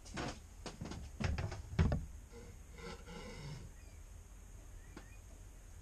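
A run of knocks and clatters as a plastic cutting board and knife are set down on a wooden table, ending in one heavier thump about two seconds in. A brief low throaty groan follows about a second later, then only faint quiet handling as the braised brisket is cut.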